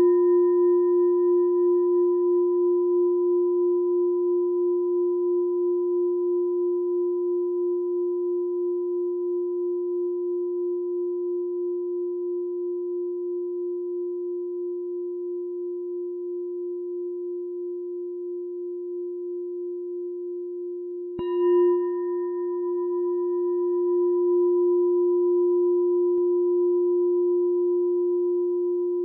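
Meditation bell ringing: one long, slowly fading tone with a few higher overtones and a gently pulsing level. It is struck once more about twenty-one seconds in and rings on again.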